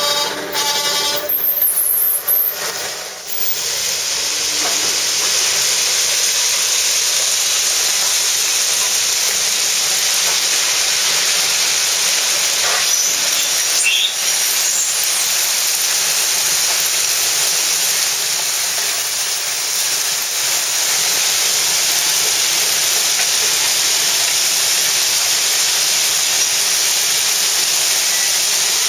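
Railcar-mounted ballast plow dragging its steel blade through crushed-stone ballast as the car rolls along the track, a steady hiss of scraping stone over the railcar's wheels on the rails. A brief squeal sounds right at the start.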